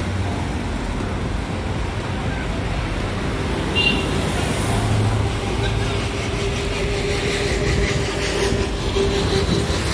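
Road traffic heard from a moving vehicle: a steady rumble of engines and tyres as trucks, minibuses and cars pass. A brief high-pitched tone sounds about four seconds in, and a steady hum runs through the second half.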